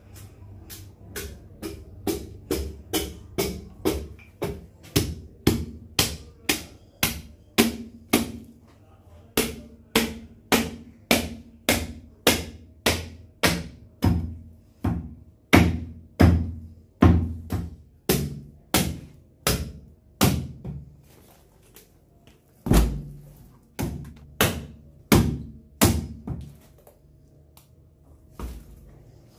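Heavy, sharp strikes repeated about two a second, each a low thud with a crack on top, with short pauses and one especially loud blow about two-thirds of the way through.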